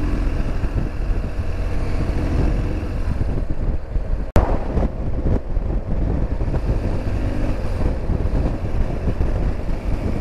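BMW R1200GS boxer-twin engine running steadily at riding speed, with wind and road noise rushing over the microphone. There is a brief dropout and click about four seconds in.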